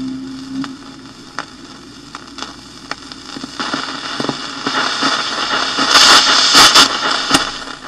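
A portable record player with its stylus in the run-out groove of a vinyl record: steady surface hiss and crackle with a tick about twice a second, after the last music note fades in the first second. From about halfway there is louder scraping and several sharp knocks as the record player is handled close to the microphone.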